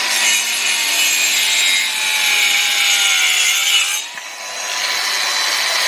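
Cordless 18 V circular saw with a 125 mm blade, a cheap Makita knock-off, cutting freehand through a piece of timber about 30 mm thick. The motor's whine sags slowly under the load. About four seconds in, the blade comes through the wood and the saw spins free at full speed. The cut goes through without bogging down or kicking back.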